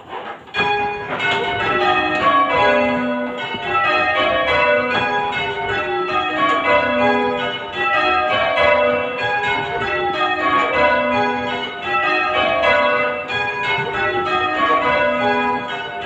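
A light ring of six church bells in the key of B, tenor 6¾ cwt, rung full circle from ropes, starting about half a second in. The bells strike one after another from highest to lowest, and the same descending row repeats over and over: rounds.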